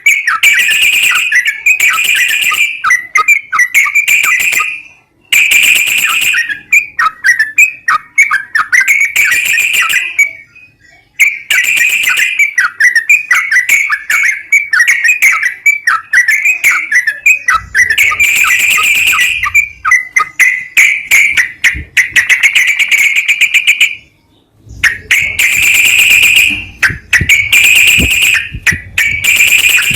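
Recorded song of a yellow-vented bulbul (trucukan): loud, rapid bubbly whistled phrases repeated over and over, with short breaks about five, ten and twenty-four seconds in. It is played as a bait song to prompt a reluctant caged bulbul to sing.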